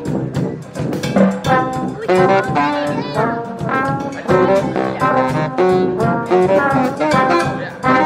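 Street brass band playing loudly: saxophone and trombone lines over sousaphone bass and a steady drumbeat, with a few horn notes sliding in pitch.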